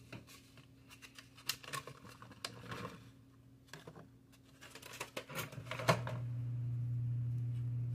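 Spatula scraping and knocking around a mixing bowl while blueberries are folded into thick cake batter: soft, irregular scrapes and clicks. About six seconds in, a steady low hum starts up.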